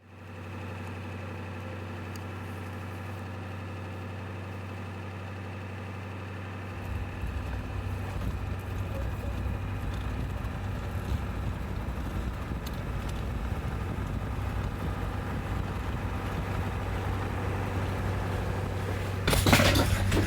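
Ambulance engine running with a steady low hum; about seven seconds in a deeper rumble comes in and the level slowly rises. Near the end there is a loud clatter.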